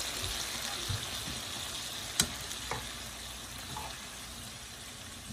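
Green beans and onions sizzling in a frying pan as they are stirred, the sizzle slowly fading, with a few light knocks and one sharp click about two seconds in.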